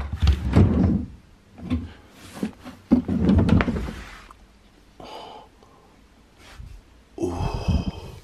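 Furniture drawers and cupboard doors being pulled open and their contents rummaged through: dull thunks and sliding rumbles in three bouts, near the start, about three seconds in and near the end.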